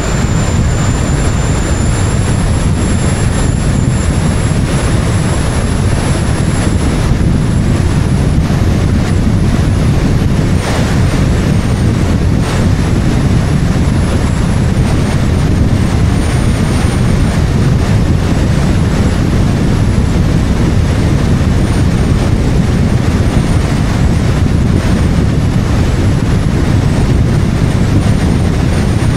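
Wind and road noise of a moving car, picked up by an action camera mounted on the car's outside: a loud, steady rumble with a faint high whine above it.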